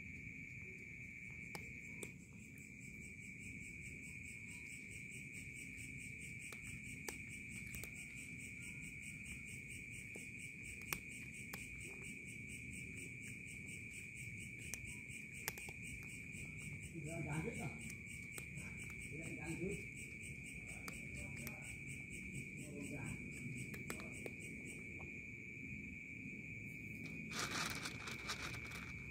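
Crickets chirring steadily on one high note, with faint scattered ticks from a kitten chewing dry cat food and a short rustle near the end.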